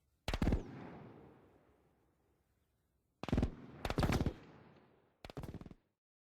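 Four short bursts of automatic gunfire, several rapid shots each. The first burst echoes and fades over about two seconds.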